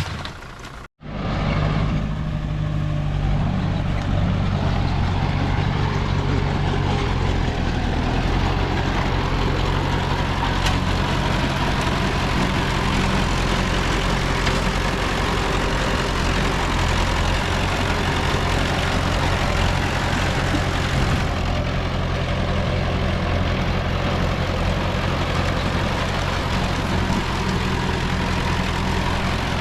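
Heavy diesel engine of earthmoving equipment running steadily at a constant speed, after a brief dropout about a second in.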